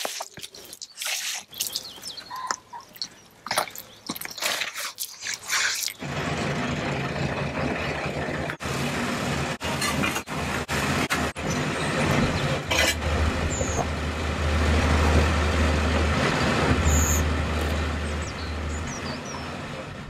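Short scattered rubbing and splashing sounds from a hand wiping water over a wet oak slab. About six seconds in, the engine of a 1969 Bedford 4x4 crane truck starts running steadily, its low hum growing louder from about thirteen seconds as the hydraulic crane lifts a strapped stack of sawn boards.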